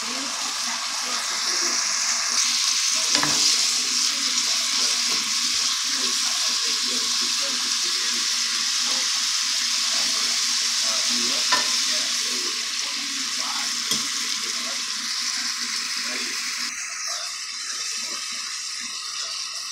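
Onion masala frying and sizzling in a black pot while a wooden spatula stirs it, knocking against the pot a few times. The sizzle eases a little near the end.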